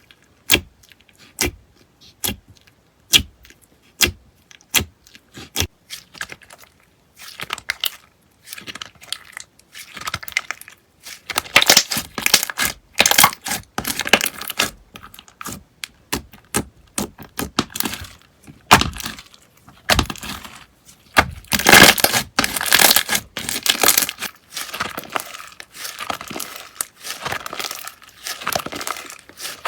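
Slime handled by hand, first making sharp clicking pops about once a second, then dense crackling and crunching as it is squeezed and worked.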